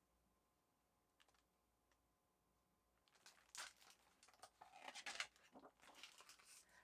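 Near silence, then about three seconds in, faint rustling and light clicks as a paper picture book's pages are handled and turned.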